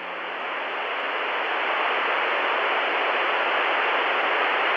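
Steady static hiss, like an untuned TV or radio, swelling up over the first couple of seconds and then holding level.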